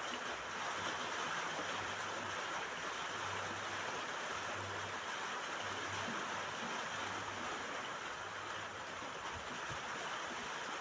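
Steady rain falling on a roof: an even, unbroken hiss of drops.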